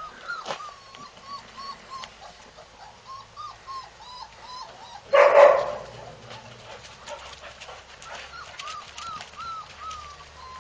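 A dog whining over and over in short, high-pitched whimpers, with one loud bark about five seconds in.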